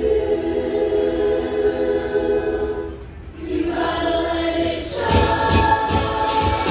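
Show choir singing sustained chords in harmony, which thin out briefly about three seconds in. About five seconds in, a new chord begins with a steady beat underneath.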